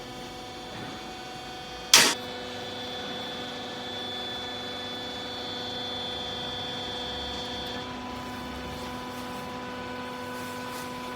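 Used-clothes baler machine running with a steady hum, with a single sharp clank about two seconds in.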